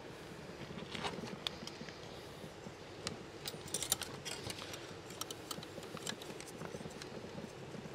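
Wire grill basket clinking and rattling as its top is closed down and clamped over whole fish: irregular light metallic clicks, a few sharper ones, over a steady low background noise.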